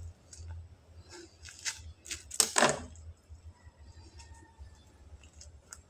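Scattered small clicks and handling noises, with one louder, longer noisy burst about two and a half seconds in.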